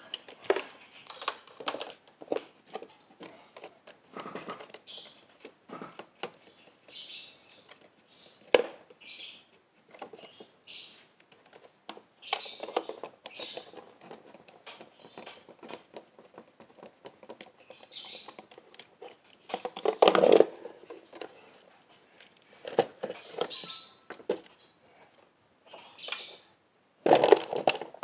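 Scattered clicks, taps and rustling scrapes of hands working with tools and parts while a scooter battery is being swapped. A louder clatter comes about twenty seconds in and again near the end.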